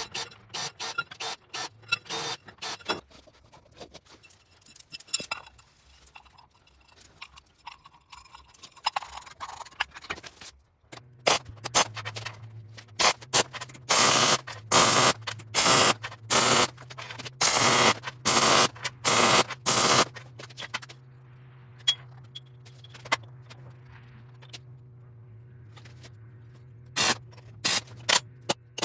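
MIG welder laying short tack welds on steel: a run of crackling arc bursts about a second each, over the welder's steady hum, with a few shorter tacks near the end. Before the welding, a cordless drill works a steel plate clamped in a vise, with short sharp strokes.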